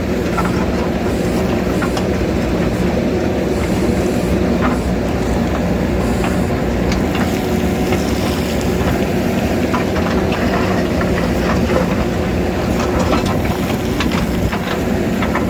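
JCB backhoe loader's diesel engine running steadily under load, with scattered short knocks and clinks of the bucket working rock.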